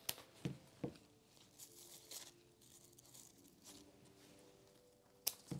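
Quiet handling of cut flowers: three sharp snips of floral shears cutting stems in the first second and another near the end, with faint rustling of leaves and stems in between.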